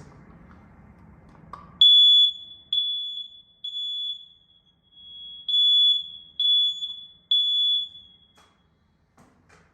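BRK hardwired smoke detector's alarm horn sounding: about seven loud, high-pitched beeps on one steady tone, roughly a second apart, starting about two seconds in and then stopping.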